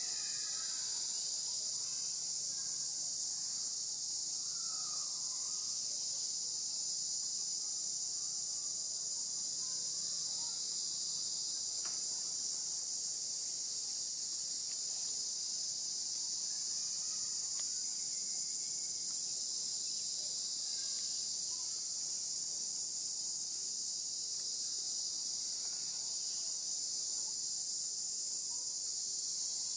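Chorus of insects in forest trees, a steady high-pitched drone that does not let up, with a few faint bird calls over it.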